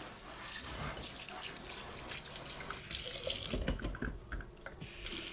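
Water running from a pull-down kitchen faucet into a stainless steel sink. A few low knocks come about three and a half seconds in, and the flow stops briefly, then runs again.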